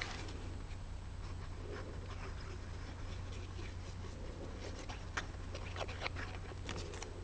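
Faint handling of paper and card stock while gluing a cut-out in place: light rustles and a few soft clicks and taps, more of them in the second half, over a steady low hum.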